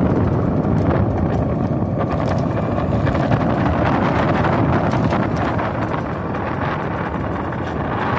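Wind rumbling on the microphone of a moving electric ATV, with ride noise and scattered small knocks.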